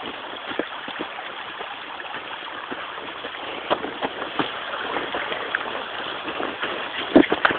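Steady rush of running water from a mountain creek, with scattered light knocks and crunches, the loudest shortly before the end.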